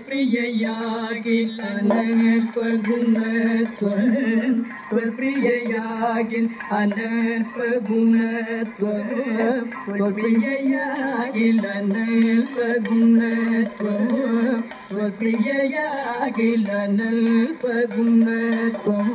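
Kathakali padam sung by a male voice in long, held lines that bend and ornament around the note.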